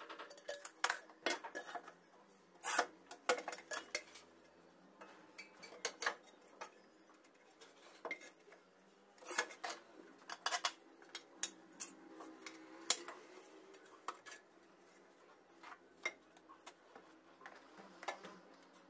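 Irregular sharp clinks, taps and scrapes of hand tools against ceramic floor tiles during tile setting, some in quick clusters.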